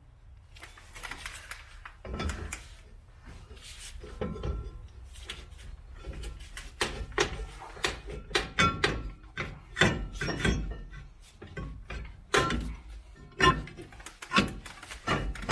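Metal clicks, knocks and scrapes of a screwdriver working the star-wheel adjuster of a rear drum brake, setting the shoes so they just drag. The clicks are sparse at first and come thicker and louder about halfway through.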